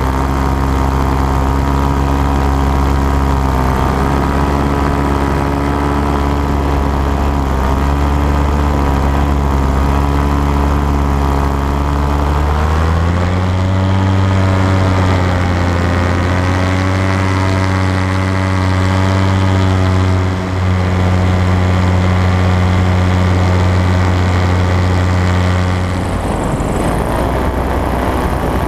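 Paramotor engine and propeller running steadily in flight. About halfway through, the pitch steps up and then holds. Near the end it gives way to a rougher, noisier sound.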